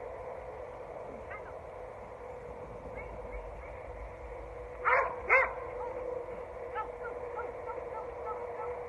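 A dog barks twice, about half a second apart, midway through, over a faint steady hum.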